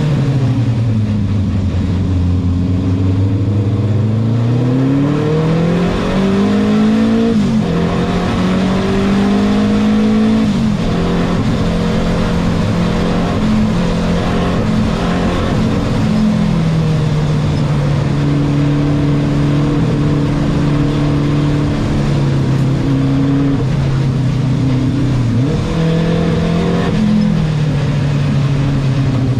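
Renault 5 Turbo 2's mid-mounted turbocharged four-cylinder race engine heard from inside the cabin under racing load. The engine note climbs through the revs and drops sharply at gear changes about seven and ten seconds in, then holds a lower, steadier note with small rises and falls.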